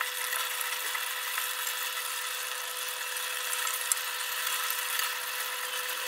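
Coconut-milk sambal sizzling in an aluminium pot as it is stirred with a wooden spatula, the santan splitting its oil at the final stage of cooking. A steady whine runs underneath, and there is a light knock about four seconds in.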